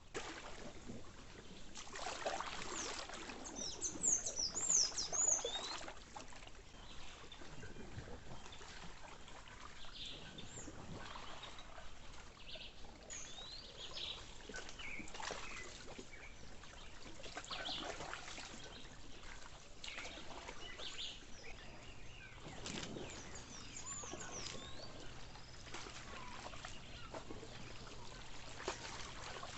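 Water splashing and trickling, with high chirping bird calls, loudest from about two to six seconds in and again briefly near the end.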